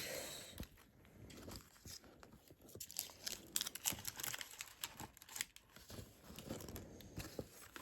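Packaging rustling and crinkling in irregular little crackles as items are handled and arranged in a cardboard book box.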